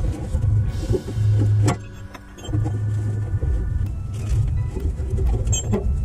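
Background music with a pulsing low beat, over a couple of sharp metallic clinks, one about two seconds in and one near the end, as a strap is fitted around a pickup's exhaust pipe.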